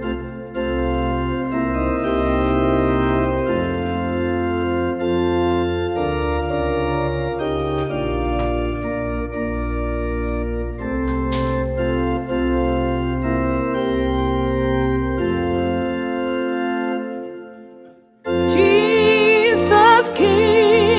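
Yamaha S970 arranger keyboard playing slow sustained chords in an organ voice, with a steady bass line. It stops briefly near the end, then a woman's singing voice with a wide vibrato comes in over the keyboard.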